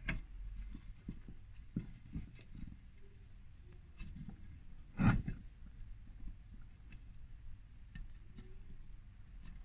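Faint, scattered clicks and light knocks of metal parts and tools being handled on a workbench, with one louder knock about five seconds in.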